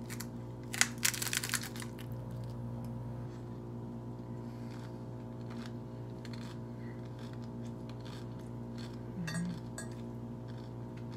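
A crisp hard taco shell crunching and cracking as it is bitten, a quick cluster of loud crackles about a second in, then quieter chewing.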